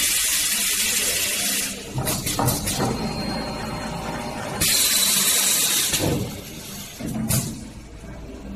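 Aluminium heat-exchanger core builder machine working: pneumatic cylinders let out sharp hisses of air, one about two seconds long at the start, another around the middle and a short one near the end. Between the hisses, metal parts clatter and click as the press plate comes down onto the stacked tubes and fins.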